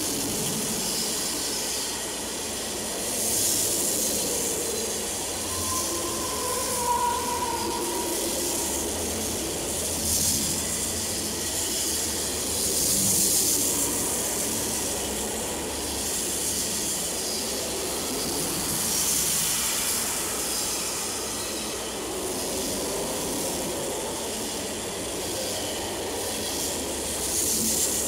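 Freight cars of a long CN mixed-freight manifest rolling past at speed: a steady rush and hiss of steel wheels on rail that swells and eases as the cars go by, with a brief high tone about seven seconds in.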